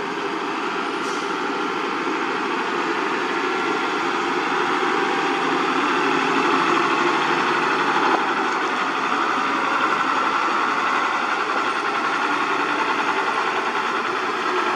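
Diesel dump truck engine running as the truck drives up and passes close by, growing louder over the first half and then holding steady.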